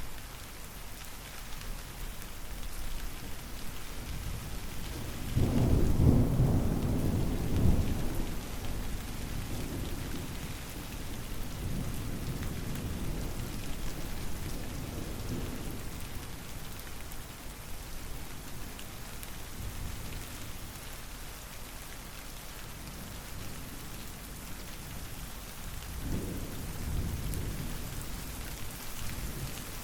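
Steady rain falling, with a loud rumble of thunder starting about five seconds in that fades over the next ten seconds or so. A fainter rumble of thunder comes near the end.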